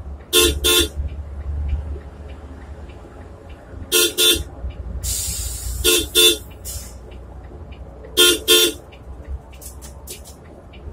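Bus horn sounding four quick double toots spaced a few seconds apart, warning the buses being overtaken, over the steady low drone of the bus's engine and tyres in the cabin. A brief hiss comes about five seconds in.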